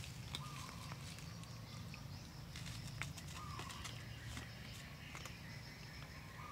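A cat crunching dry kibble: irregular small clicks of chewing and of food pieces shifting, over a steady low hum.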